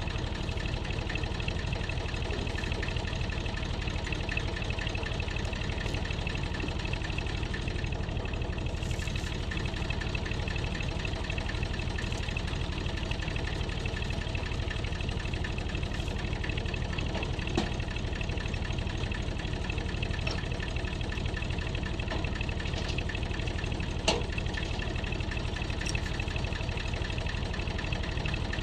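Excavator's diesel engine idling steadily, with a couple of light knocks partway through.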